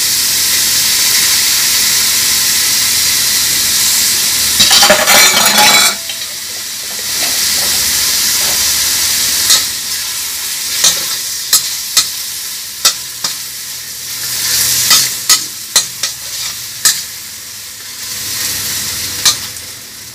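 Bacon, crab sticks and sausage sizzling in a hot stainless steel wok. About five seconds in, carbonara sauce goes into the pan and the sizzle surges loudly for about a second, then dies down. After that a metal spoon stirs the sauce, scraping and clicking against the wok.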